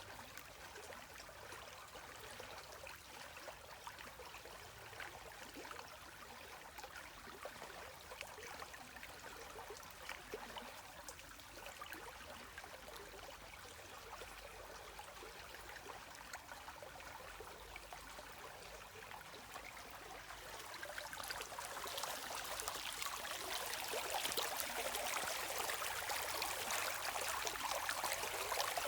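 Gentle running stream, a steady trickling babble dotted with tiny splashes, swelling noticeably louder about two-thirds of the way through.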